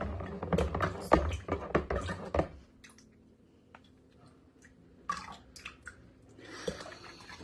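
A spoon stirring powdered punch mix into cold water in a container, with quick clinks and knocks for about two and a half seconds, then only scattered light clicks and handling.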